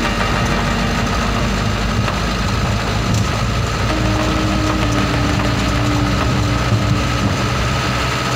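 Steady engine and road rumble inside a moving truck's cab.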